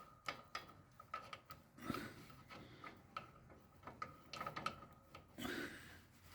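Faint, scattered clicks and light taps of hand work on ride-on mower deck parts and tools, with a couple of soft rubbing rustles.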